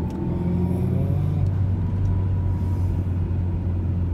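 Lada Vesta's 1.6-litre engine running as the car drives, heard from inside the cabin. It is a steady, low engine note, with a faint higher whine that rises a little in the first second.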